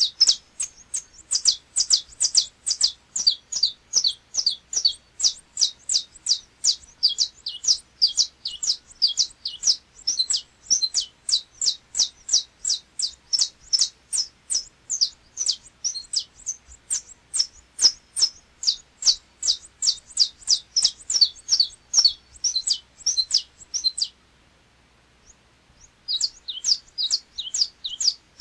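Saffron finch (canário-da-terra) singing its 'açoite repicado' song: a long, rapid series of high, sharp notes, about three or four a second. The song breaks off about 24 seconds in and starts again two seconds later.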